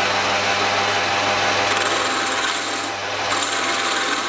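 A homemade roughing gouge, ground from a hardened steel rod, cutting a wood spindle spinning on a metal lathe: a steady, loud scraping hiss of wood being cut, over the low hum of the lathe motor. The freshly reground gouge is cutting well and removing a lot of material.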